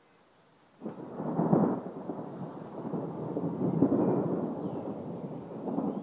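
Thunder: about a second in, a sudden clap breaks the quiet and turns into a long low rumble that swells again midway and is still rolling at the end.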